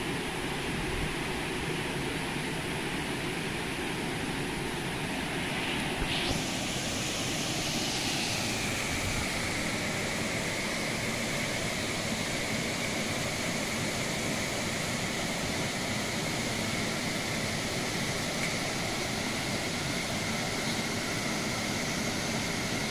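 Steady rush of stream water pouring over a small concrete weir. About six seconds in the sound changes, and a steady high whine sets in, sliding down slightly before holding.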